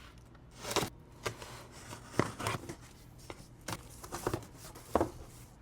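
A clutch kit package being unpacked by hand: scattered rustling and tearing of packaging with light knocks from handled parts, the louder ones about a second in, at two, near three and a half and at five seconds.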